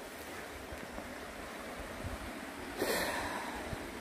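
A single short snort about three seconds in, over a steady background hiss.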